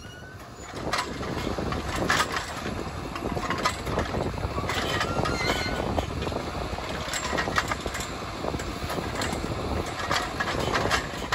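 The engine of a Kershaw rail-mounted tie crane running, with scattered knocks and clanks as its grapple handles railroad ties. A brief thin squeal comes about five seconds in.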